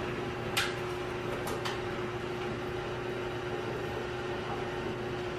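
Steady indoor hum, like a household appliance or air conditioning running, holding one constant tone. A few light, sharp clicks come about half a second in and again at about a second and a half.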